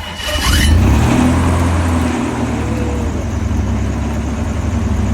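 Six-cylinder Subaru main propulsion engine of an SVP-10 hovercraft running: it picks up briefly about half a second in, then settles to a steady run. It has fresh timing chains and runs smoothly.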